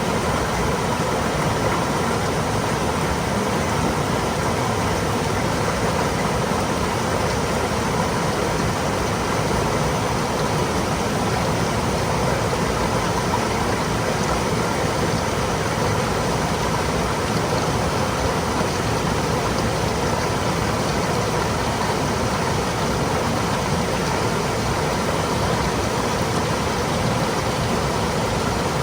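Stream water flowing and trickling over rocks, a steady, unbroken rush.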